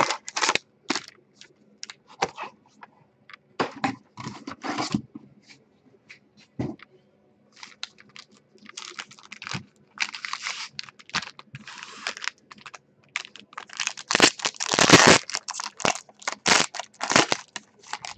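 Foil-wrapped trading card packs rustling and clicking as they are handled out of a cardboard box and stacked. From about 14 seconds in comes a dense, louder run of foil crinkling and tearing as a pack is ripped open.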